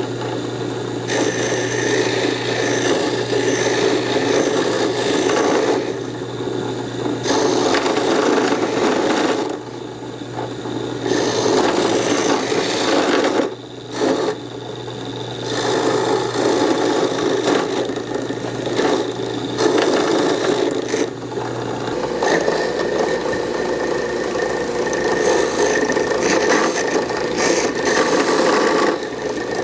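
An electric woodworking power tool running steadily while it cuts or sands into wood in a series of rough, rasping spells, easing off briefly every few seconds between passes.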